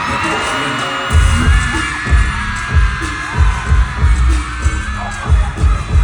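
Live concert music through a venue's PA, with a heavy pulsing bass beat that kicks in about a second in. A crowd cheers and screams over it.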